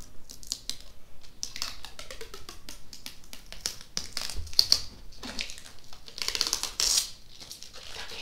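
Protective plastic film being picked at and peeled off a monitor's plastic casing, in irregular runs of sharp crackles and ticks with fingernail clicks. The crackling is densest about halfway through and again near the end.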